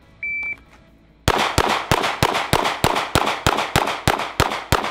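A shot timer's short start beep, then a Glock 19 9 mm pistol fired twelve times in an even rhythm of about three shots a second, with about 0.3 s between shots. This is a timed drill, with pairs of shots on each of six targets.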